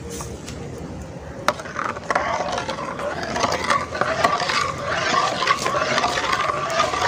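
Steel ladle stirring milk in a wide aluminium pot, scraping against the metal, with a single knock about a second and a half in. The stirring gets louder and steadier about two seconds in.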